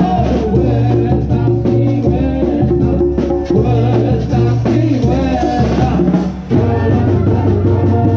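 Live Mexican banda music: brass with timbales and cymbal percussion, with a brief break about six and a half seconds in.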